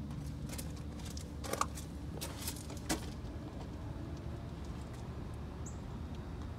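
A few footsteps crunching on gravel, mostly in the first half, over a steady low rumble.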